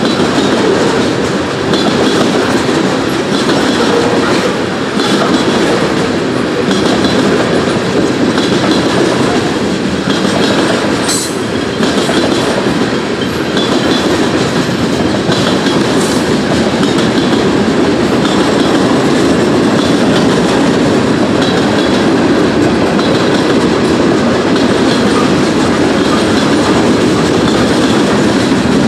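Loud, steady rumble of a long freight train of tank cars and boxcars rolling past, steel wheels running on the rails, with no letup.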